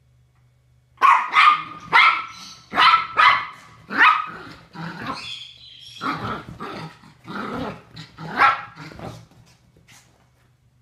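Small chihuahua barking frantically: a fast run of sharp, high barks starts about a second in and dies away near the end. It is alarm barking at deer outside.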